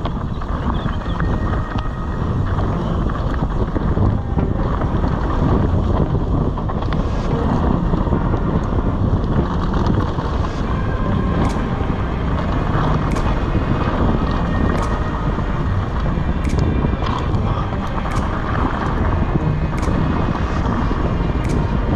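Wind buffeting an action camera's microphone on a mountain bike descending a dirt downhill trail, with steady rumble from the tyres and ride. From a few seconds in, sharp clicks and rattles come again and again.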